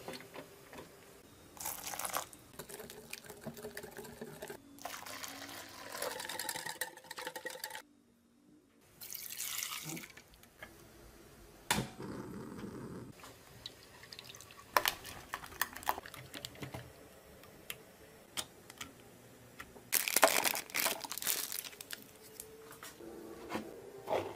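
Vanilla milk in an aluminium saucepan being handled and stirred, with liquid sloshing in stretches and a few sharp knocks of a utensil against the pot. Near the end, flour is poured into a stainless steel mixer bowl.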